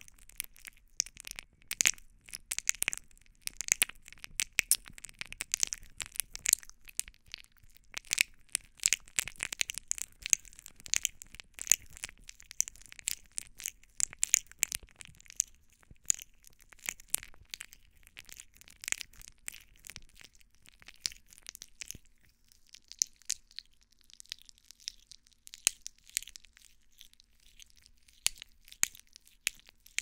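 Fingers rubbing and squeezing the silicone ears of a binaural microphone, heard right up close as dense crackling and crunching. The rubbing turns sparser and softer about three-quarters of the way through.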